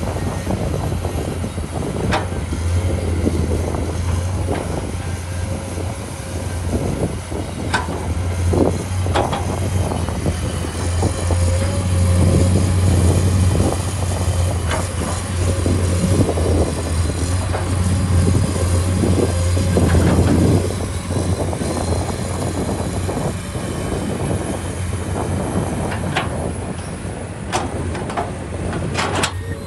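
Komatsu PC210 hydraulic excavator's diesel engine running with a steady low drone, swelling louder a few times as the machine works the soil. Scattered sharp knocks and clanks sound over it.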